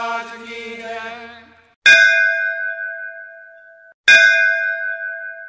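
A chanted voice fades out, then a bell is struck twice, about two seconds apart. Each stroke rings on in clear, steady tones as it dies away.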